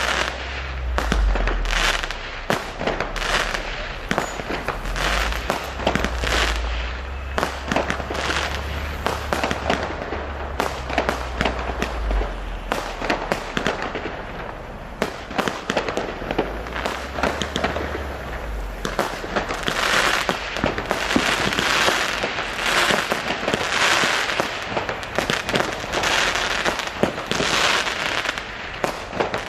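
New Year fireworks going off without a break: many sharp bangs and crackles overlapping, thickening into dense crackling bursts in the last third.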